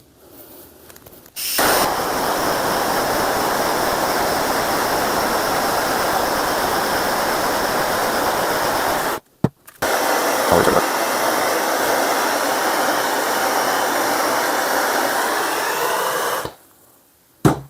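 Handheld gas torch flame running with a steady rushing hiss as it chars boiled linseed oil on a wooden screwdriver handle. It cuts out briefly about halfway with a click, starts again, and shuts off near the end, followed by a single click.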